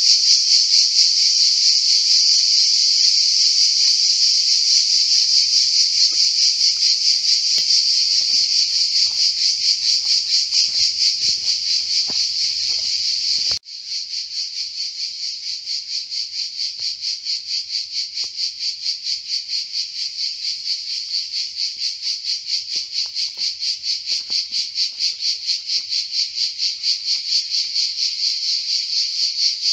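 A loud, high-pitched chorus of insects chirring without a break. After a brief gap a little under halfway through, the chorus pulses evenly a few times a second.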